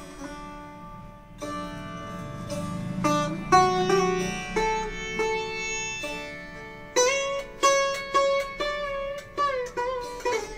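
A Radhey Shyam Sharma sitar, more than 15 years old, played solo: plucked notes ring on, with pitch slides between some of them, and a quicker run of plucks starts about seven seconds in.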